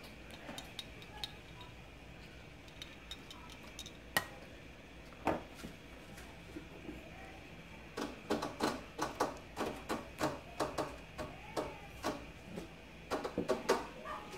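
Kitchen clatter: scattered clinks and knocks of dishes and utensils, turning into a quick run of sharp taps and clacks over the last several seconds.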